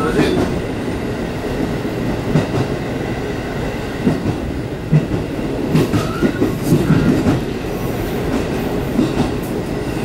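Diesel railcar running at speed, heard from inside the driver's cab: a steady engine and rail rumble, with a cluster of irregular wheel clacks over the station's points a few seconds in.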